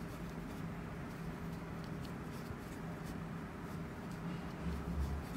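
Faint scratching and light ticks of a metal crochet hook drawing cotton yarn through loops, over a steady low hum, with a soft low thump near the end.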